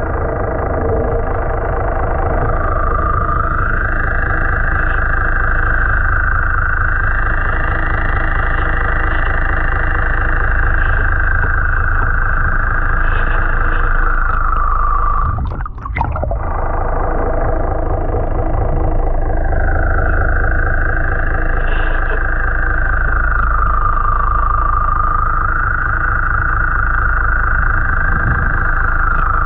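Steady drone of a boat's engine and propeller heard underwater, with a whining tone that rises and falls slowly and a brief dip about halfway through.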